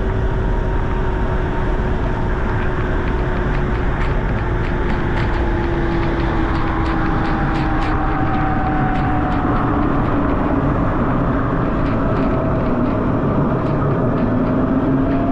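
Wind buffeting the camera microphone on a moving Ryvid Anthem electric motorcycle, a heavy steady rumble. Over it the electric motor's faint whine glides slowly down in pitch as the bike slows, then rises again near the end.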